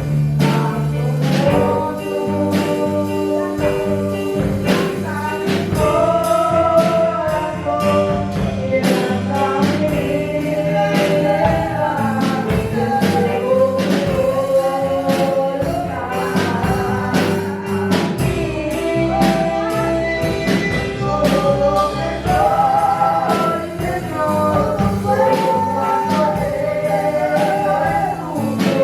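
Gospel song with a group of voices singing over instrumental accompaniment and a steady percussive beat.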